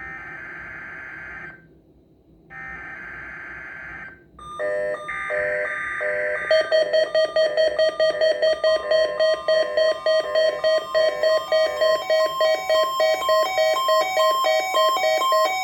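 NOAA Weather Radio required weekly test signal. First come two buzzy digital SAME header bursts, each about a second and a half long. From about four and a half seconds on, a weather radio receiver's alert sounds: loud electronic beeping in a rapid repeating multi-tone pattern, with a steady tone underneath from about halfway through.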